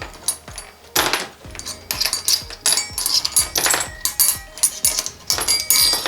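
Small metal clutch parts from a Vespa PX 200 clinking and clattering as they are handled and set down, with many sharp metallic clicks that ring briefly. Background music plays under them.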